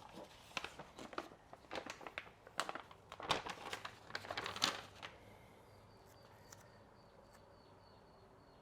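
Crinkling and rustling of a sticker letter's backing sheet being handled and peeled, a run of short crackles that stops about five seconds in.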